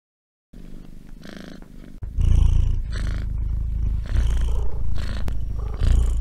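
Domestic cat purring, swelling and easing in a repeating breath rhythm. It starts softly about half a second in and turns much louder about two seconds in.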